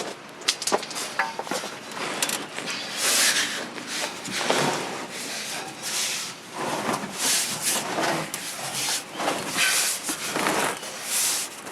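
Repeated rough scraping, about eight strokes, each lasting roughly half a second to a second, like a tool or a heavy object being dragged over a hard, gritty surface.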